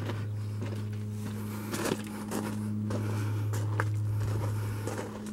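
Footsteps crunching on gravel, irregular short crunches and clicks over a steady low hum.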